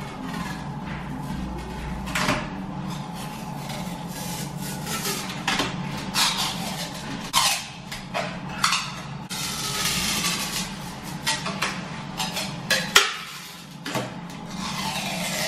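Protective plastic film being peeled off a new PVC window frame, crackling and ripping in irregular tears, over a low steady hum.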